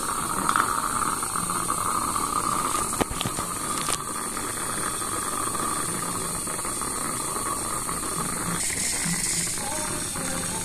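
Steady hiss of a dental saliva ejector (suction tube) in the mouth, with two sharp clicks about three and four seconds in; the hiss changes tone about eight and a half seconds in.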